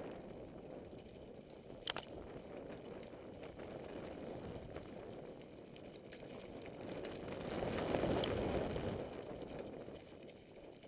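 Downhill mountain bike tyres rolling fast over a loose stone trail, a steady crunching rush with the bike rattling. There is a sharp click about two seconds in, and the noise grows louder for a couple of seconds around eight seconds in.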